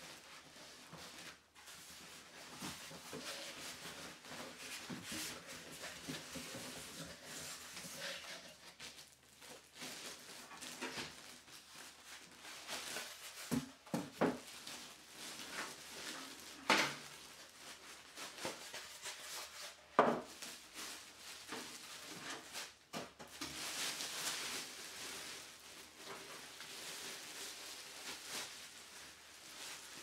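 A computer case being unboxed: plastic wrap crinkling and foam packing blocks rubbing and squeaking against the cardboard box, with a few sharp knocks as the case is handled, the loudest a little past the middle.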